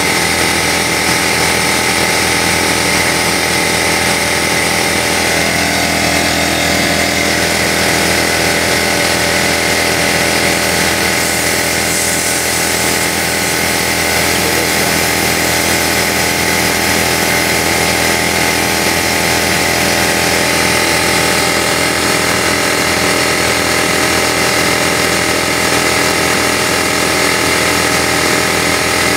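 Porter Cable 6-gallon pancake air compressor running steadily and loud, its pump filling the tank as pressure climbs toward the 150 psi cut-off.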